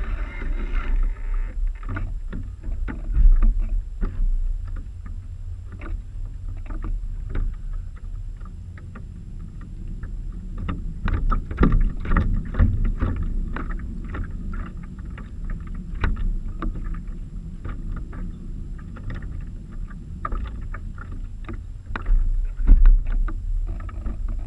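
Water splashing and slapping against the hulls of a Mini40 radio-controlled model trimaran under sail, heard close up from the onboard camera: dense irregular splashes over a steady low rumble.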